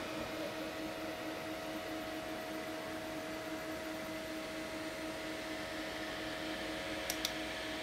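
Chauvet Intimidator Spot LED 250 moving-head light homing after power-up: a steady hum and whir from its cooling fan and pan/tilt stepper motors as the head swings into position. Two faint ticks near the end.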